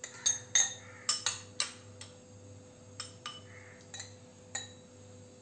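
Metal spoon clinking against tall drinking glasses as muddled lychee is spooned in: a quick run of clinks in the first two seconds, then a few scattered ones.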